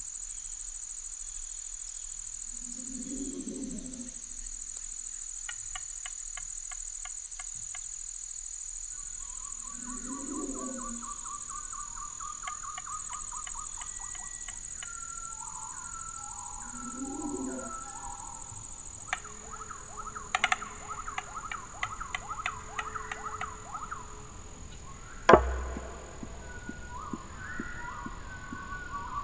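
Woodland insects buzzing in a steady high-pitched drone, with bursts of fast ticking and chirping notes. A few low calls come every several seconds, and there is one sharp thump near the end.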